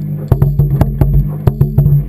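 Background music: sharp, wood-block-like percussion knocks at an uneven rhythm, several a second, over steady low sustained notes.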